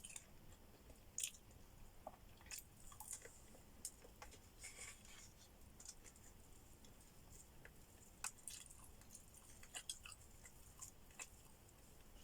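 A person chewing food at a close microphone: faint, with scattered short, sharp mouth clicks and smacks at irregular moments.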